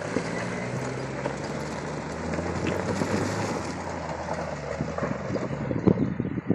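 A 1992 Jeep's straight-six engine pulling steadily under load as the Jeep drives up a steep dirt hill, with gravel and stones crunching and clattering under the tyres.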